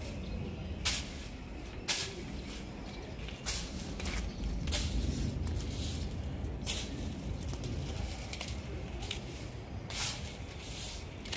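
A stick broom sweeping brick paving: a handful of short, separate swishes, irregularly spaced a second or more apart, over a steady low rumble.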